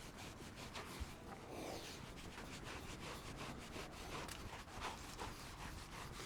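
Faint rubbing and rustling with scattered light ticks, and a soft knock about a second in.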